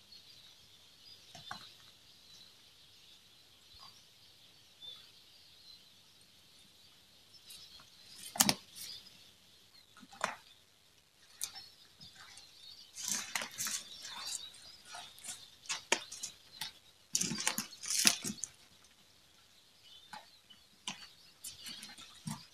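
Footsteps crunching through dry leaf litter and dead reed stems: irregular rustles and snaps, sparse at first, then denser and louder in the second half.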